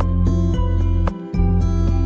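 Gentle background music: sustained notes changing every half second or so over a deep bass.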